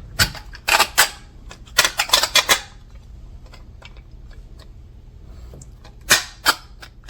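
Sharp clicks and clacks of small metal hardware being handled as a spring assembly is fitted over mounting screws. There is a quick flurry of them in the first few seconds, then two more near the end.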